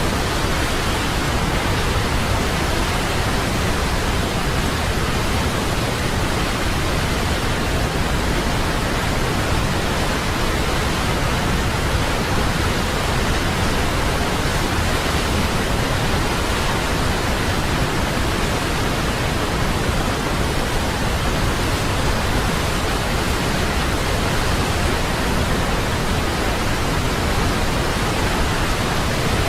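Waterfall: a steady, unbroken rush of falling water, even from deep rumble to high hiss, with no change in level.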